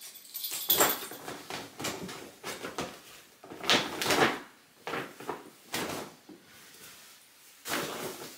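Clothes and a shopping bag being handled: irregular rustling with a few soft knocks, loudest about a second in and again around four seconds in.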